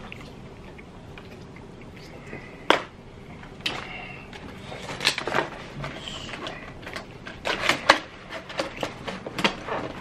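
Close-up eating and handling sounds: mouth noises of chewing, with sharp clicks and crackles from a clear plastic rotisserie chicken container being handled. The loudest snaps come about 3 seconds and 8 seconds in.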